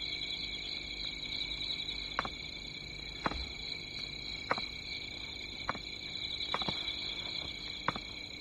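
Steady chirring of night insects, with a series of soft footsteps on stone steps about once a second.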